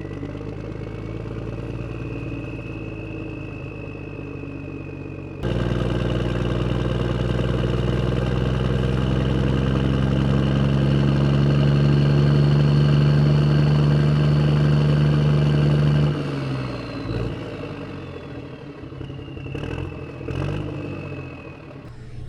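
Truck engine running steadily; it gets abruptly louder about five seconds in, then cuts away about sixteen seconds in to a quieter, uneven engine sound.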